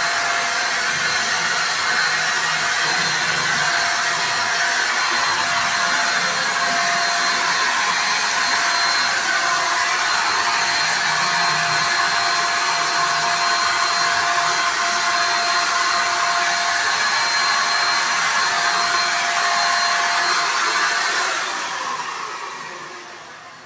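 Ingco handheld electric spray gun running steadily while spraying paint: a steady whine over a rushing hiss. About 21 seconds in it is switched off and its motor winds down, the sound fading away.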